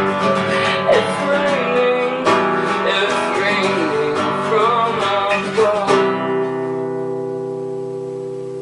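Acoustic guitar music, strummed and plucked under a gliding melody line, ending about six seconds in on a final chord that is left to ring and fade.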